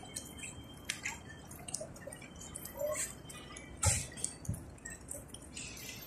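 Ambience of a large flock of feral pigeons on a paved square: faint, scattered clicks and flutters, with a dull thump about four seconds in.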